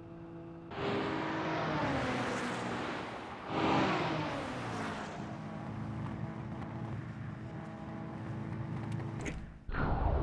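High-revving sports car engines as two cars rush past at speed, each pass falling in pitch, the second at about four seconds in. A steady engine note held at high revs follows, and a sudden deep rumble cuts in near the end.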